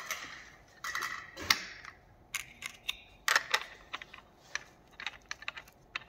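Clicks and metallic clatter of a cutting disc being fitted onto an angle grinder by hand, the grinder not running: irregular short clicks and scrapes as the disc and flange nut go onto the spindle.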